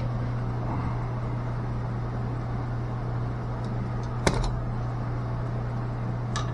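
A steady low machinery hum, with a sharp click about four seconds in and a lighter click near the end.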